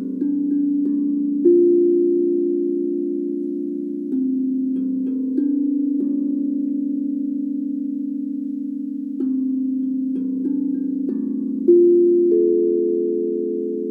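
Large steel tongue drum (Buben Štěstí) struck with mallets, one note at a time about a second or more apart. Each low note rings on long and blends with the next, and two strikes, about a second and a half in and near the end, sound louder than the rest.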